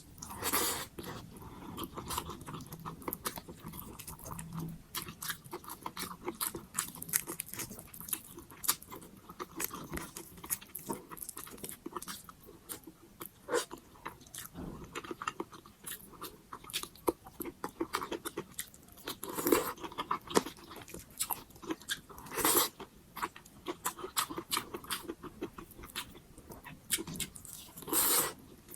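Close-miked mouth sounds of a person eating pork sinigang: a steady run of small wet chewing and biting clicks, with a few louder, longer bursts of noise, one about half a second in, two in the later part and one near the end.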